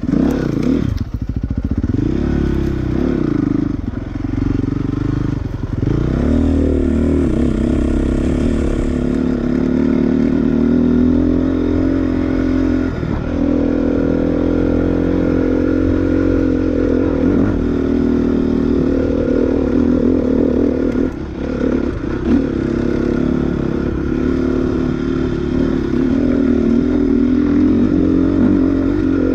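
Dirt bike engine running under way, its pitch rising and falling several times in the first few seconds, then holding a fairly steady speed with a couple of brief drops.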